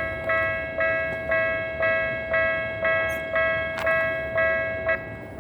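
Japanese level-crossing warning bell ringing in a steady rhythm of about two strikes a second, each strike dying away, then stopping about five seconds in.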